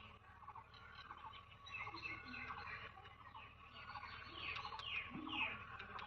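Birds calling: a run of short repeated notes, with many quick descending chirps over it that grow busier after about four seconds; the blue-eared barbet is among the callers.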